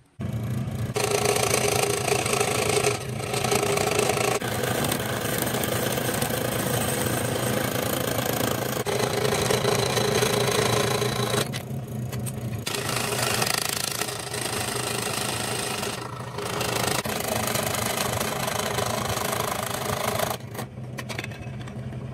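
Ryobi 405 mm (16-inch) scroll saw running with a steady motor hum, its reciprocating blade rasping through a thin wooden board. The cutting noise drops away briefly a few times while the motor keeps running.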